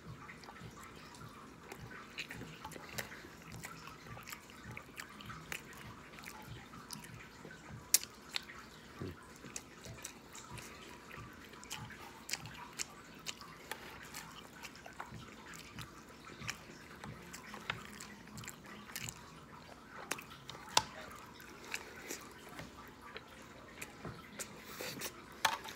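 Close-up eating sounds of a man chewing loaded fries: wet smacking and clicking mouth noises, with a few sharper clicks standing out, the loudest about eight seconds in.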